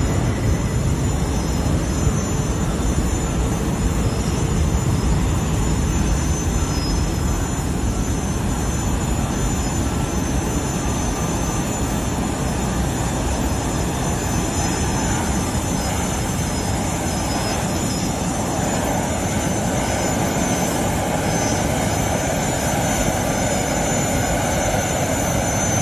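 Jet aircraft engine running steadily at an airport: an even rushing noise with a thin high whine over it.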